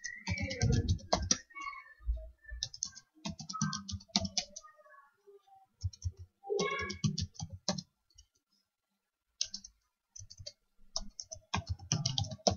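Typing on a computer keyboard: several short bursts of rapid keystrokes with brief pauses between them.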